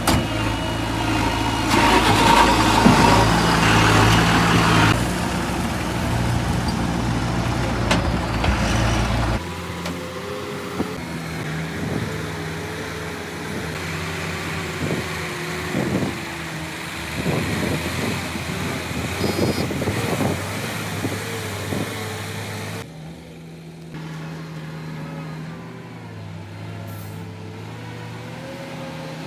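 JCB machine's diesel engine running while it works, with a few knocks in the middle. The engine sound changes abruptly about nine seconds in and again near the end.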